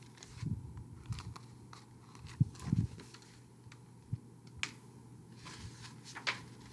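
A hardcover picture book being handled and its paper pages turned: scattered soft rustles and clicks with a few low knocks, the loudest about two and a half seconds in.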